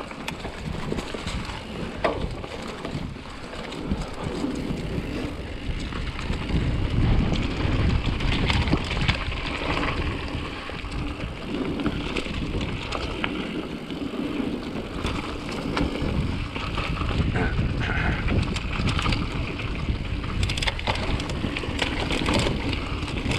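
Mountain bike riding down a dirt singletrack: wind buffeting the microphone as a steady low rumble, tyre noise on the dirt, and the bike rattling over bumps with frequent clicks and knocks.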